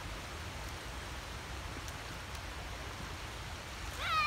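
Steady rain falling, an even hiss throughout. Near the end a brief high-pitched voice cries out.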